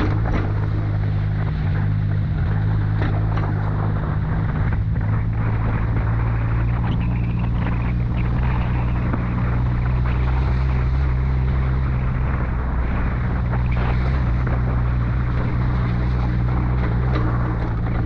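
Vehicle engine running at a steady speed with a low, even drone, under a continuous rumble of road and wind noise as it drives off-road.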